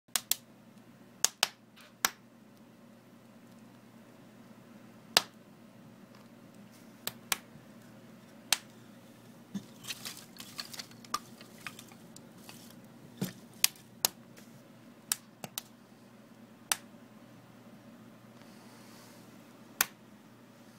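Wood fire in a wood-burning stove crackling, with sharp pops at irregular intervals, a few seconds apart, over a low steady background.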